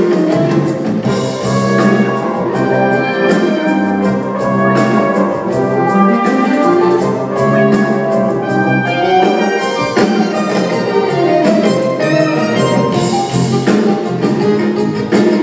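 Orchestral music with brass prominent, an instrumental passage of the show tune with no singing.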